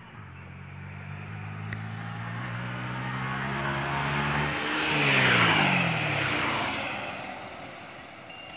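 A motor vehicle driving past close by on a road: its engine hum swells and drops in pitch as it goes by, with a rush of tyre and air noise at its loudest about five seconds in, then fades away.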